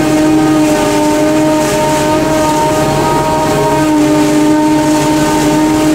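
Forage harvester running under load, chopping maize and blowing it into a trailer: a loud, steady machine drone with constant humming tones over a dense rush of noise.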